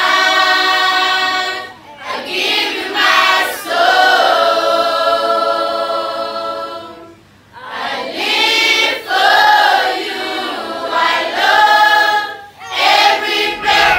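A choir of voices singing in long, held phrases, with short breaks between phrases.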